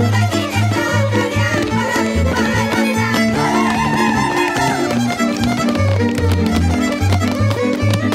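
Traditional Hungarian Kalotaszeg folk dance music from a string band: a fiddle plays the melody over sustained chords and a bass line that keeps a regular beat.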